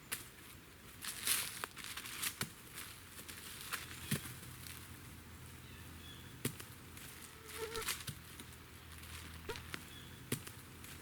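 Rustling with scattered sharp clicks and knocks, about seven in all, from handling a trail camera and its strap while mounting it on a tree.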